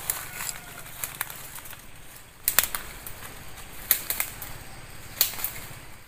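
Footsteps through dry leaf litter and brushing undergrowth: rustling with sharp crackles, the loudest coming about every second and a half.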